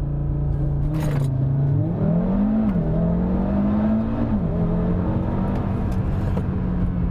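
Audi RS3's turbocharged 2.5-litre five-cylinder engine, with factory exhaust and Stage 1 tune, in a hard 0-to-60 acceleration run. It is held at steady revs, then pulls away with the pitch climbing, drops at a dual-clutch upshift about two and a half seconds in, climbs again, and drops at a second upshift just past four seconds before holding steady.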